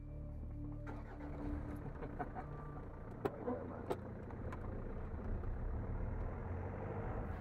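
Car engine running, heard from inside the cabin as the car moves off. The noise swells about a second in and stays steady, with a few sharp clicks in the middle.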